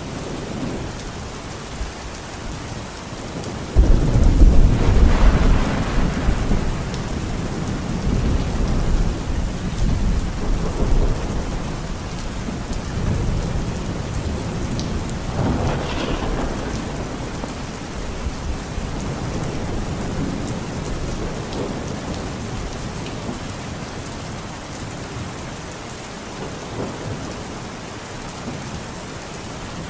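Heavy rain pouring steadily. A sudden loud clap of thunder about four seconds in rumbles on for several seconds, and a second, sharper peal of thunder comes about halfway through.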